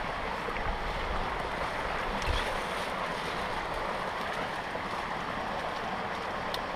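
Steady rush of running water from the waterfall's stream.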